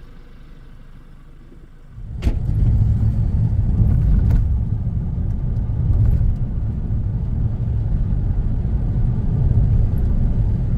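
Steady low rumble of engine and road noise inside a moving vehicle's cabin, starting abruptly about two seconds in after a quieter low hum, with a couple of faint clicks.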